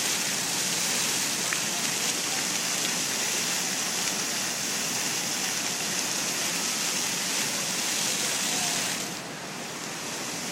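Dozens of water jets from a ground-level plaza fountain spraying up and splashing down onto wet paving, a steady rushing hiss. About nine seconds in the sound drops and turns duller as the jets change from tall sprays to low, foaming spouts.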